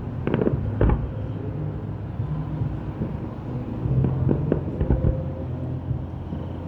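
Aerial fireworks bursting in a display: a few sharp bangs just after the start, then a quick cluster of bangs about four to five seconds in, over a steady low rumble.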